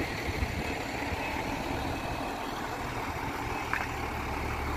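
Diesel engine of a semi-truck tractor unit running steadily at low revs during slow manoeuvring, a low rumble that swells a little in the second half. A short click sounds near the end.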